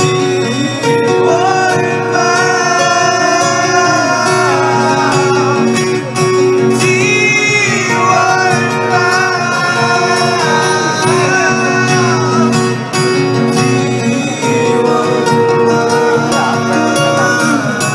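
Live acoustic band: two acoustic guitars playing together under a man's singing voice, heard through the PA.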